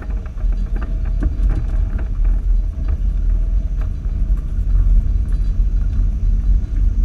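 Off-road Jeep rumbling along at low speed over a rutted dirt track, a steady low drone of engine and drivetrain with scattered small knocks and rattles from the bumpy ground.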